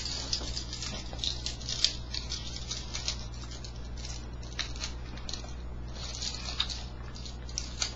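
Two pairs of metal handcuffs clicking, scraping and rattling in small irregular bursts as they are worked at, over a steady low hum.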